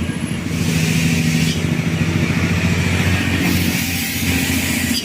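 Road traffic: a heavy vehicle's engine running steadily as it passes, with two stretches of tyre and road noise.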